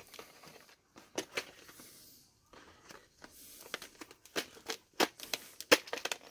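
Tough plastic clamshell packaging being handled and worked open: scattered crackles and clicks of stiff plastic, coming more often towards the end.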